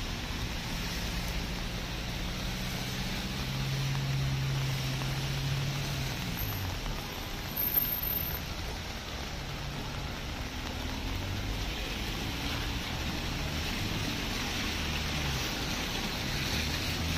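Wet-street ambience in light rain: a steady hiss of rain and tyres on the wet road, with the low hum of passing car engines rising for a few seconds at a time and one brief tap about halfway through.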